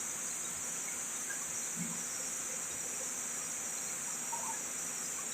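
Steady, high-pitched insect chorus, an unbroken shrill background of crickets.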